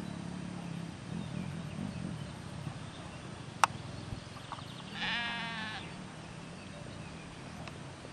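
A flock of sheep bleating: low, wavering bleats through the first few seconds, then one loud, high bleat about five seconds in. A single sharp click sounds a little past halfway.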